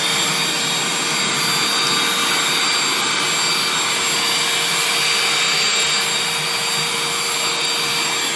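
Shark CH701 Cyclone Pet handheld vacuum running steadily: a high, even motor whine over the rush of air, cleaning up around a cat litter box.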